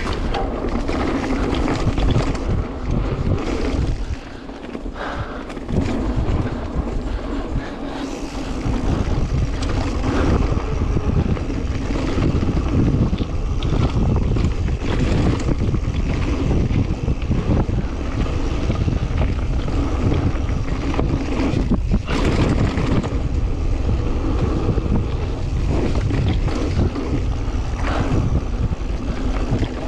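Wind rumbling on a GoPro's built-in microphone while mountain biking, mixed with scattered knocks and rattles from the bike over rough trail. The rumble eases off for a few seconds about four seconds in, then returns.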